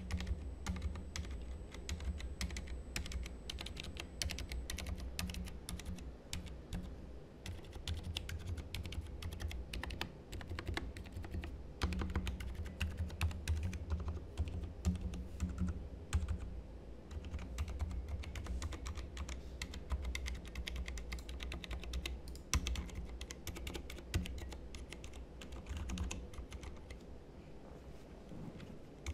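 Continuous typing on an mStone Groove T SF mechanical keyboard fitted with low-noise (silent) red linear switches: a dense, unbroken run of keystrokes in quick succession.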